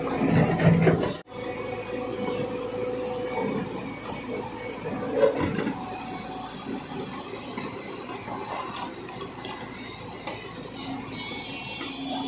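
JCB tracked excavator moving through wet mud, its diesel engine running under a rushing noise of mud and water. The sound drops out briefly about a second in and continues quieter after.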